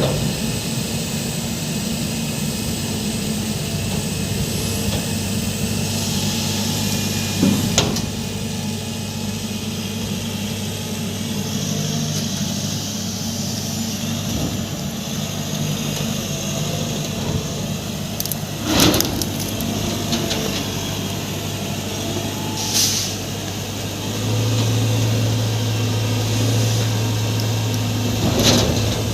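Heavy vehicle engine running steadily at the lifting work, with several short hisses of released air spread through. Its note grows louder for the last few seconds.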